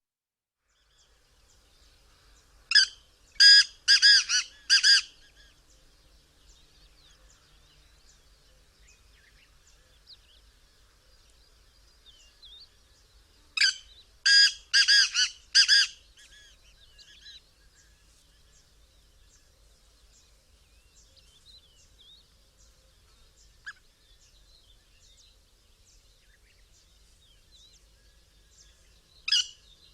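Black francolin calling: a loud phrase of about five short, clipped notes, given twice about eleven seconds apart, with a third phrase starting right at the end. Faint small-bird twittering can be heard between the phrases.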